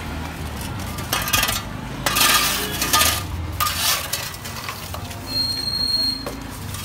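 Metal shovels scraping and clinking against concrete and gritty debris, in irregular strokes with the loudest about two and three seconds in.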